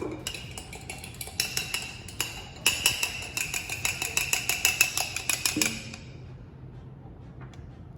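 A utensil stirring food colouring and oil in a small glass, clinking rapidly against its sides at about five clinks a second with a glassy ring, then stopping about two thirds of the way through.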